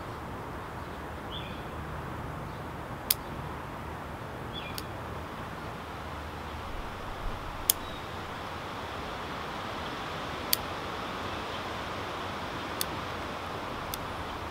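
Bonsai scissors snipping shoots off eastern white cedar (Thuja) bonsai: about six sharp snips a few seconds apart, over a steady background hiss.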